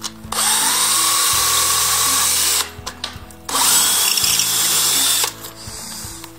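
Bosch 18 V cordless drill boring into a plastered masonry wall in two runs of about two seconds each with a short pause between, the motor whining up to speed at the start of the first.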